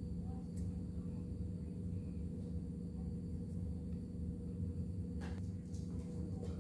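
A steady low hum, with a few faint clicks about five seconds in and again near the end.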